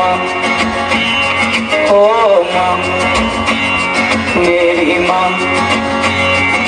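Music with guitar over a steady beat, a wavering melody line rising and falling above it.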